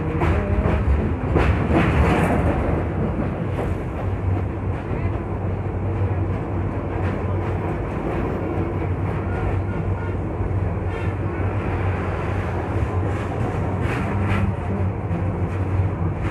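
Passenger train running, heard from inside the carriage at an open window: a steady low rumble of wheels on rails, with bursts of clattering clicks near the start and again near the end.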